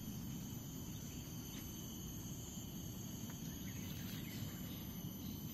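Steady high-pitched drone of forest insects, several thin tones held without a break, over a constant low rumble and a few faint ticks.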